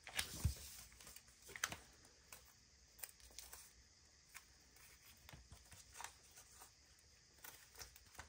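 Faint, irregular light clicks and crinkles of paper: a stuck sticker being slowly peeled up off a journal page.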